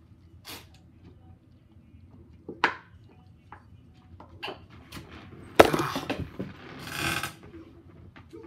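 Gulping and small clicks from chugging a small plastic bottle of drink. About halfway through comes a sharp knock, the loudest sound, then a breathy gasp.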